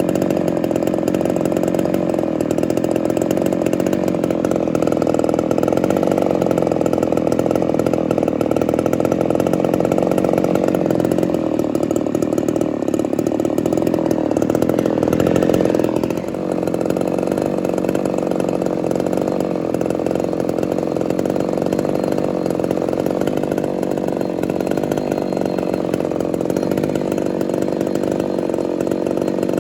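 Ported Homelite Super XL-130 two-stroke chainsaw running steadily just after starting, its carburettor freshly adjusted after a loose idle screw. The engine note briefly dips about halfway through.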